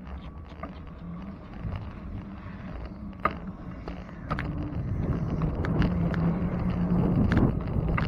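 Bicycle riding noise picked up by a bike-mounted camera: wind rushing over the microphone, a low steady hum and scattered clicks and rattles, growing louder from about halfway through as the bike picks up speed.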